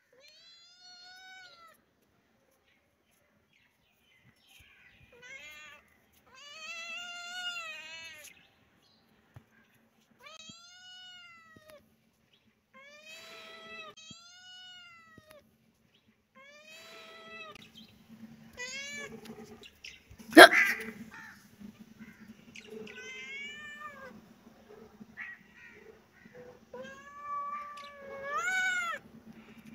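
Tabby-and-white kitten meowing over and over, about a dozen separate meows, each rising then falling in pitch, with short gaps between them. A single sharp knock about two-thirds of the way through is the loudest sound.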